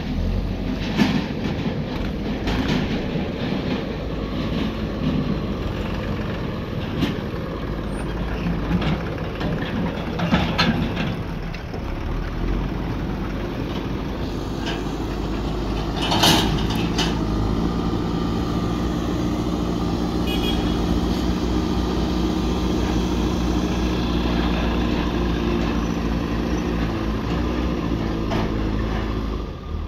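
Farm tractor's diesel engine running as it tows a soil trailer, with sharp knocks and rattles from the trailer over the first half and one loud clank about halfway through. After the clank the engine holds a steady pitch.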